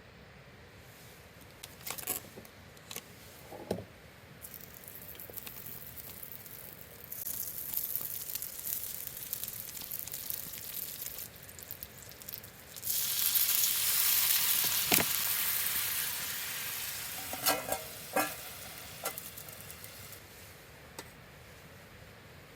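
Food sizzling on an iron griddle set directly on campfire embers; the sizzle swells about a third of the way in, is loudest just past the middle, then dies down. A few short clicks and knocks of utensils against the plate.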